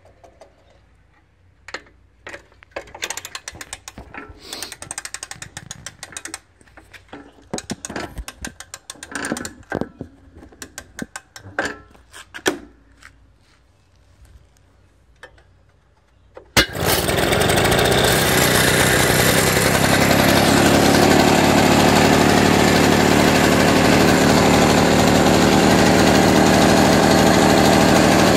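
Irregular clicks and rattles as a 1968 Victa Cortina 2 lawn mower is readied for starting. About sixteen seconds in, its 125cc two-stroke engine catches and runs steadily.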